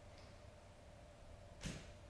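Near silence: room tone with a faint steady hum, and one short whoosh about a second and a half in.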